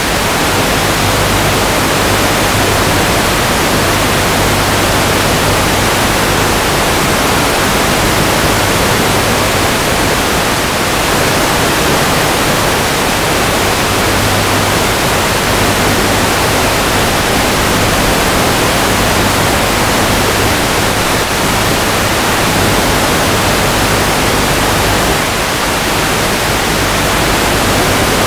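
Steady, loud hiss of static from an analog FPV video receiver's audio channel, with a faint low hum underneath.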